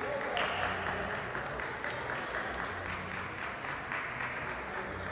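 Spectators applauding in a hall, breaking out suddenly and slowly dying down.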